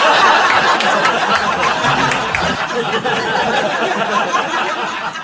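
Audience laughing after a comedian's punchline, a loud crowd laugh that fades away towards the end.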